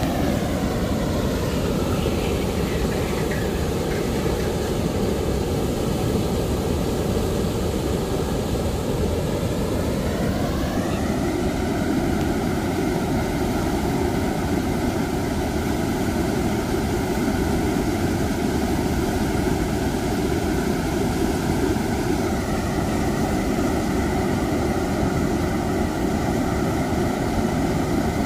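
A motor running steadily over a heavy rushing noise, its whine sinking in pitch over the first few seconds, rising sharply about ten seconds in, then dipping slightly a little past twenty seconds.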